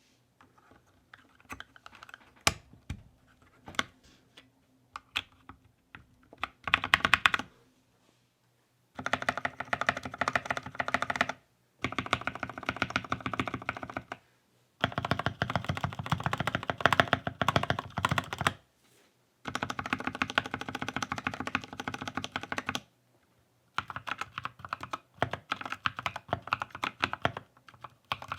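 Keychron K6 mechanical keyboard with NovelKey Cream linear switches: a few scattered single keystrokes, then about a third of the way in, rapid runs of repeated presses on the stabilized long keys in several bursts of a few seconds each, separated by short pauses. Typing begins near the end.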